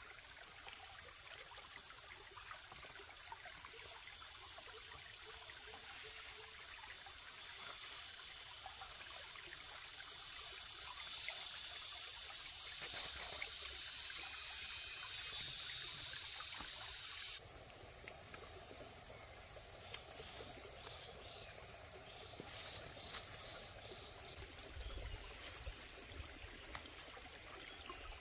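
Stream water running and trickling, growing louder over the first two-thirds, then cutting abruptly to a quieter, duller flow with a few light clicks.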